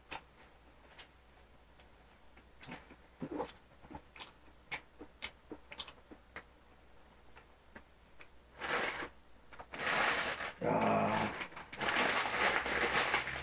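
Faint scattered clicks of eating and handling food, then several seconds of louder rustling and crumpling near the end, with a short lower-pitched sound in the middle of it.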